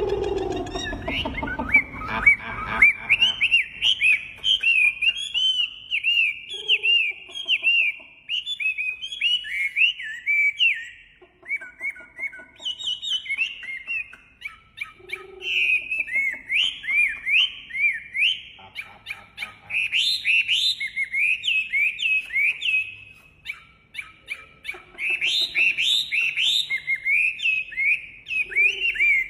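Wambi songbird singing long runs of quick, sharply slurred whistled notes repeated in fast series, pausing briefly twice.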